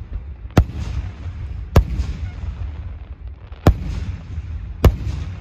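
Aerial fireworks going off: four sharp bangs one to two seconds apart, over a low rumble.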